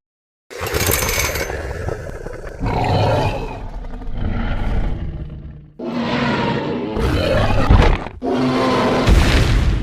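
Dinosaur roar sound effects for an animated Indominus rex and Tyrannosaurus rex: a run of long, rough roars, several in a row with brief breaks, starting about half a second in.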